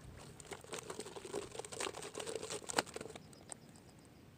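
Plastic bottle fish trap being handled and shaken, its thin plastic crinkling and clicking irregularly as small bait fish are worked out of it, with one sharper click a little under three seconds in.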